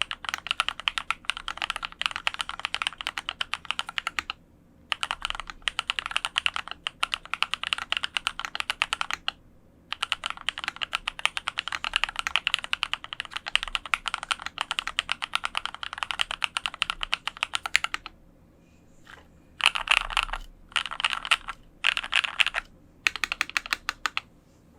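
Fast typing on a custom Dolphin 2021 mechanical keyboard with lubed linear frankenswitches (Cherry black housings with Kailh red stems, Krytox 205g0) in an aluminium plate under Hammerworks CRP R4 keycaps. The keys clack in quick continuous runs broken by three brief pauses, and the typing ends in several short, dense bursts.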